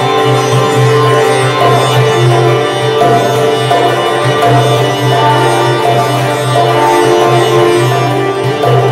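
Sitar playing a melody line of notes shifting every second or so, over a steady low drone.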